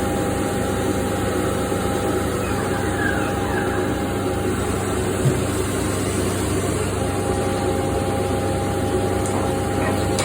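CNC machining centre running while machining an SS400 steel part: a steady machine hum with constant tones over a noisy mechanical background. A brief falling whine comes a little over two seconds in, and a single sharp click about five seconds in.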